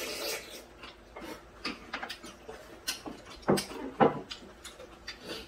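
Close-up eating sounds of people slurping cold bean-soup noodles (kongguksu) and chewing: a brief wet slurp at the start, then scattered small mouth clicks and smacks, with two sharper smacks about three and a half and four seconds in.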